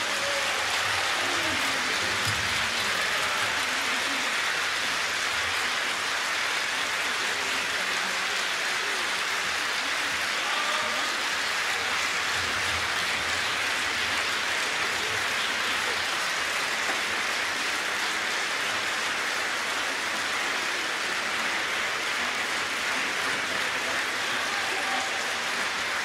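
Large concert-hall audience applauding: a dense, steady clatter of many hands clapping.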